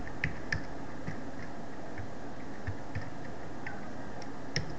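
Computer keyboard keys being typed, scattered single clicks a few at a time, over a steady hiss.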